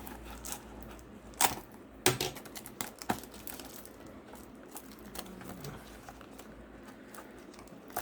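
Product packaging being handled and opened by hand: a few sharp clicks and knocks about one and a half, two and three seconds in, between lighter rustling and tapping.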